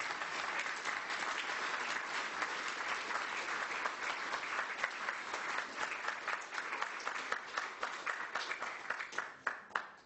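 Audience applauding, thinning to a few scattered claps near the end.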